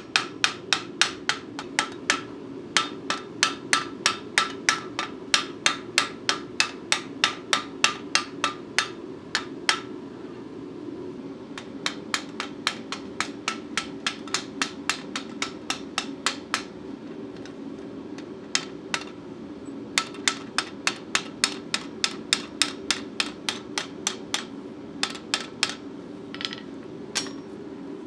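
Hand hammer striking red-hot steel plate on an anvil in quick, even blows, about three a second, each with a short metallic ring. The blows pause briefly about ten and eighteen seconds in. A steady low hum runs underneath.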